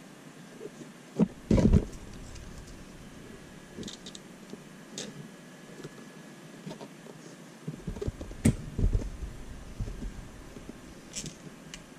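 Pliers and a screwdriver working small metal RC shock-absorber parts by hand: scattered light clicks and knocks, with louder thumps about a second and a half in and a cluster of knocks around eight to nine seconds in.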